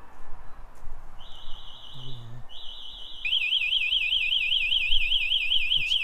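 Yale Smart Living alarm siren going off: a steady high tone starts about a second in, breaks off briefly, then turns into a fast warbling wail about three seconds in. The alarm has been triggered by someone entering the armed garage.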